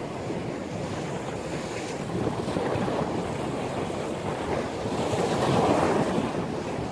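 Sea surf with strong wind on the microphone, swelling louder about five seconds in and easing again.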